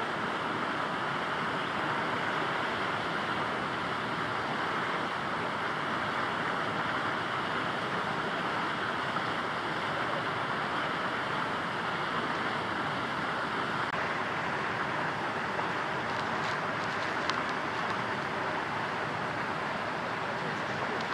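Steady outdoor background noise, an even rushing hiss like wind or distant traffic. A faint high steady tone in it stops about two-thirds of the way through, and a few faint ticks come near the end.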